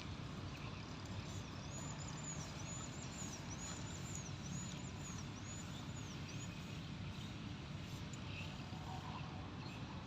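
Outdoor ambience with a steady low rumble, over which a bird repeats a high, arched chirp about eight times in quick succession, falling silent a little after halfway.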